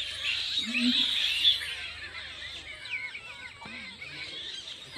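Birds chirping and twittering: many short overlapping calls, busiest in the first couple of seconds, with a brief low voice-like sound about a second in.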